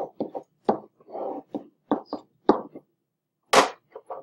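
Stylus or pen tapping and rubbing on an interactive whiteboard as axes are drawn: a quick, irregular run of taps and knocks, with a brief rub about a second in and a short hiss about three and a half seconds in.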